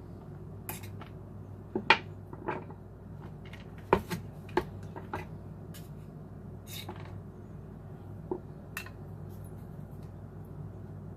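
Kitchen knife knocking and clinking against a cutting surface and kitchenware while a block of cream cheese is cut into portions. The sharp taps come irregularly, a dozen or so, the loudest about two and four seconds in, over a low steady hum.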